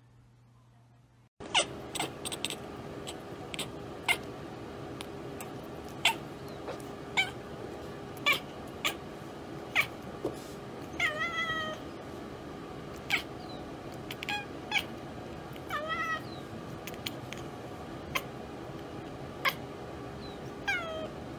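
A cat chattering and chirping at prey it cannot reach through a window, starting about a second and a half in. It makes short sharp chirps and clicks every second or so, a few in quick runs, over a steady faint hum.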